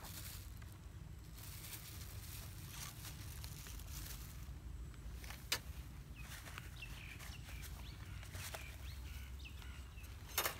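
Quiet outdoor ambience with a steady low rumble and a few short bird chirps in the middle, broken by two sharp clicks, the louder one near the end, as the cooking things are handled.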